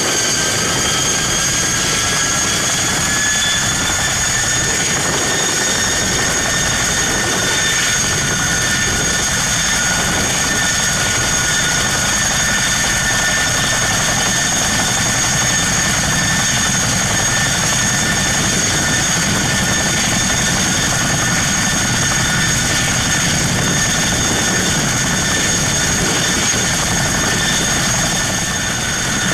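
Boeing CH-47 Chinook tandem-rotor helicopter running loud and close, with its twin turbine engines whining. Several high tones rise slightly over the first few seconds and then hold steady above the constant noise of the engines and rotors.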